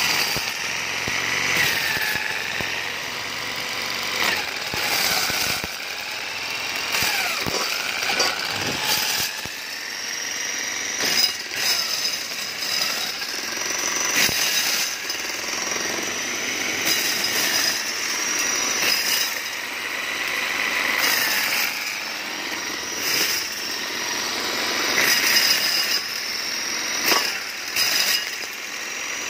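Homemade motorised maize sheller running, its spinning disc stripping kernels from a corn cob held against it. A steady machine whine that dips in pitch now and then, with loose rattling and clicking of kernels throughout.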